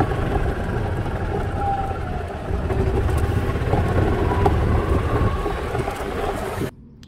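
Golf cart being driven over a dirt and gravel lot: a steady low rumble of the cart running and its tyres rolling, which cuts off suddenly near the end.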